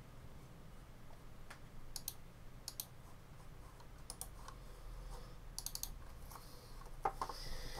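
Light clicks and taps from operating a mobile phone, scattered, some in quick runs of two or three, with a couple of louder knocks near the end.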